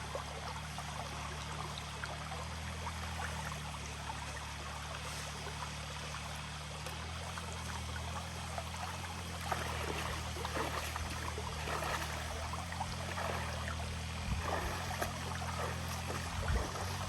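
Water running and trickling, over a steady low hum. From about halfway through come scattered small splashes and knocks.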